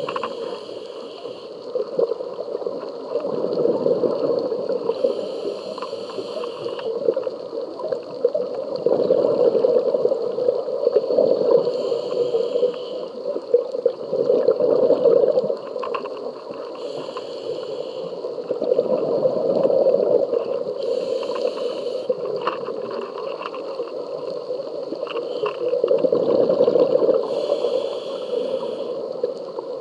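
Scuba diver breathing through a regulator underwater: a short hiss on each inhale about every five or six seconds, alternating with the longer low bubbling of each exhale.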